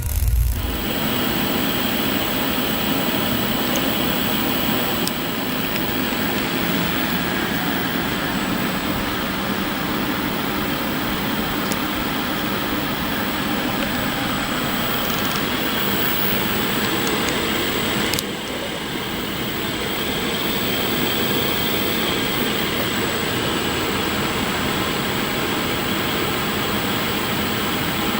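Yaskawa SGM-04AWSU13 AC servo motor running on a test bench, a steady mechanical noise with a faint high steady whine. A few short clicks, and brief dips in level about five and eighteen seconds in.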